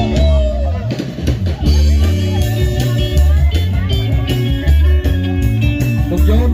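Loud dance music with electric guitar, a heavy bass line and drum kit, playing at a steady beat.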